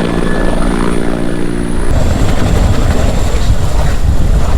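Helicopter running overhead, its engine and rotor giving a steady hum of several tones. About two seconds in, the hum cuts off and a loud low rumble takes over.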